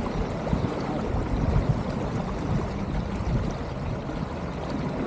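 Wind buffeting the microphone over water rushing along the hull of a sailboat under sail on a beam reach, a steady noise that flutters in level.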